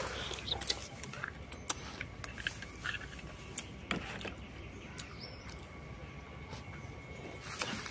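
Close-up eating sounds of a person eating an oyster: a loud slurp from the shell at the start, then chewing and wet lip-smacking with scattered small clicks.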